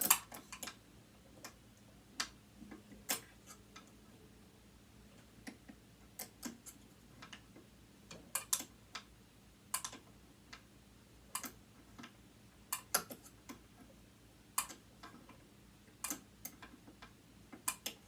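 Irregular small metal clicks and taps of hand tools, such as hex keys, working at screws in a sewing machine motor being taken apart.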